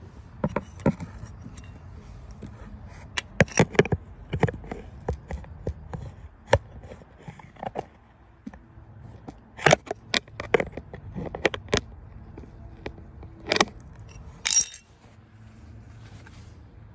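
Irregular sharp metallic clinks and taps of hand tools such as a wrench being handled against engine parts, with a brief ringing metal scrape near the end.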